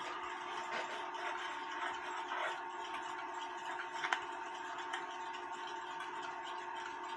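Light rubbing and small clicks of brass clock parts being hand-polished with metal polish, one sharper click a little past the middle, over a steady electrical hum.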